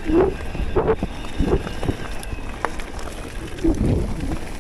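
Focus Jam2 electric mountain bike ridden down a rough trail: wind rumbling on the action camera's microphone, with sharp knocks and rattles from the bike over bumps.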